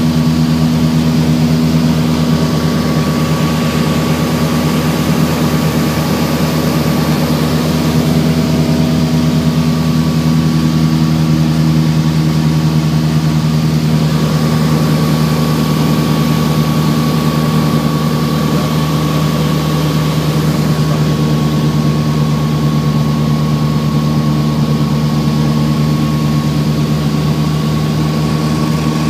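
Cabin drone of a Piper PA-44 Seminole's two four-cylinder Lycoming piston engines and propellers in flight: a loud, steady hum of several held tones, with a thin higher tone above it, heard from inside the cockpit.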